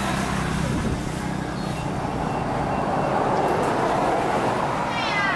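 A motor vehicle running: a low engine hum in the first second under a steady rushing noise, with a short high falling sound near the end.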